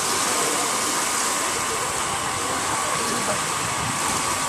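Steady rush of running water at a water-park pool, with a faint steady tone underneath.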